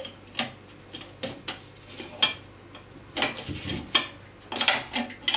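Steel parts of an SVDS (Dragunov-pattern) rifle clicking and clacking as they are fitted back together by hand during reassembly. Scattered single sharp clicks, then two quick clusters of knocks in the second half.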